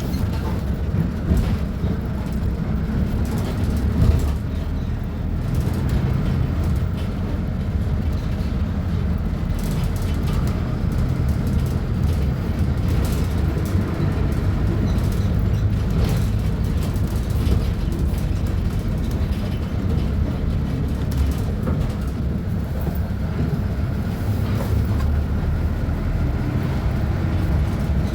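Diesel engine of a Volkswagen Volksbus 15.190 OD Euro 5 bus running, a steady deep drone whose note shifts a little now and then.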